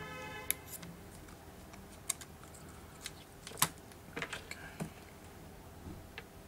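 Scattered small clicks and taps of fingers and a flat pry tool handling the parts of an opened Samsung GT-P5200 tablet, the sharpest click about three and a half seconds in and a quick run of them just after.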